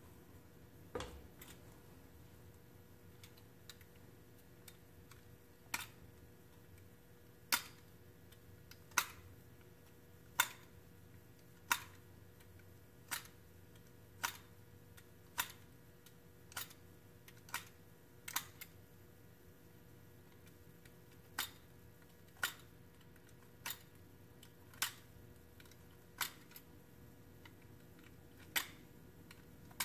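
A utility knife blade cutting at the end of a wooden dowel: a steady series of sharp clicks, about one a second.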